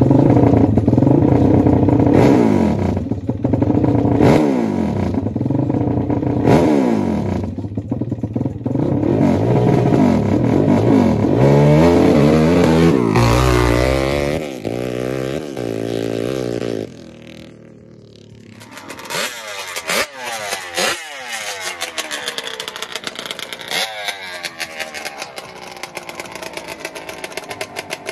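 Sport ATV engine revved over and over at the starting line, then launching hard and pulling up through its gears with a rising pitch run for each shift. About seventeen seconds in, the sound drops off abruptly, and a second drag quad's engine idles with short throttle blips.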